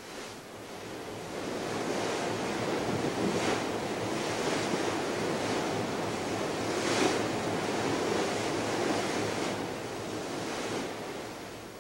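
Rough open sea: waves sloshing and breaking, with wind, fading in over the first couple of seconds and out again near the end. A few louder splashes stand out along the way.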